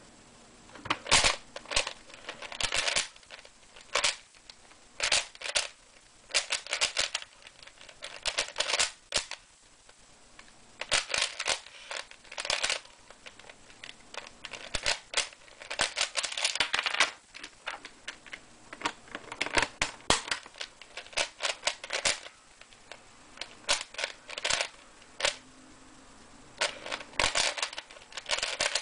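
Plastic 3x3 Rubik's cube being turned fast in a speedsolve: rapid clattering clicks of the layers snapping round, in flurries of a second or two with short pauses between.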